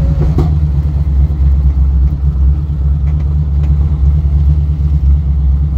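Camaro Z28's V8 running at idle through a freshly fitted 2.5-inch exhaust with mufflers, a loud, steady, deep rumble.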